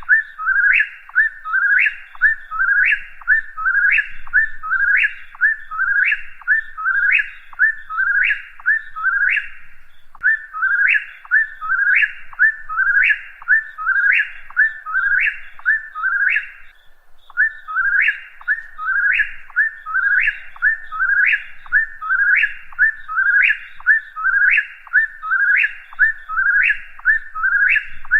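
Whip-poor-will singing its whistled "whip-poor-will" song over and over, about three phrases every two seconds, each ending on a sharp rising note. The run breaks off briefly twice, about a third of the way in and again past halfway.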